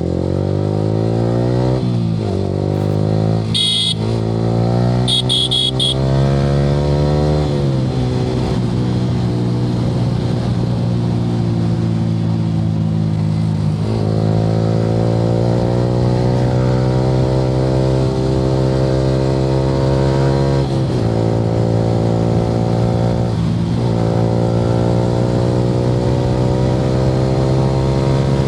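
Yamaha R15 V3's 155 cc single-cylinder engine through an aftermarket Akrapovic R9 exhaust, accelerating hard through the gears with the pitch climbing and dropping at each upshift, then cruising steadily with a few brief throttle lifts. A horn beeps twice, about four and five and a half seconds in.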